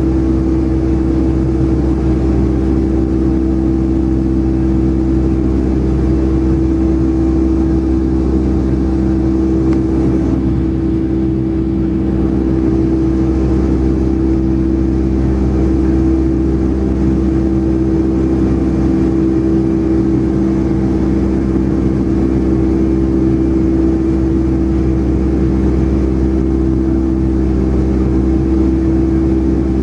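Boeing 757-200's jet engines heard inside the passenger cabin during the climb after takeoff: a loud, steady drone with a strong humming tone over a deep rumble.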